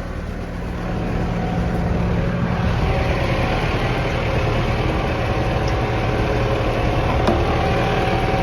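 Tractor engine running and driving a feed mixer as it mixes hay and grain into cow feed; the sound grows louder and busier about three seconds in.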